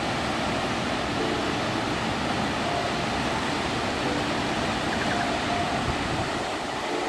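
Waterfall rushing steadily as it cascades down smooth rock slabs into a pool: a constant, full sound of falling water that stays even throughout.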